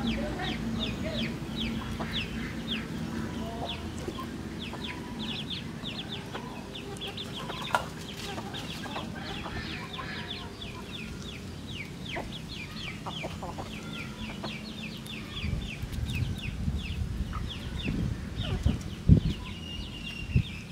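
A flock of chickens clucking while they forage and peck, over a constant stream of short, high, falling chirps, several a second. A few low bumps sound near the end.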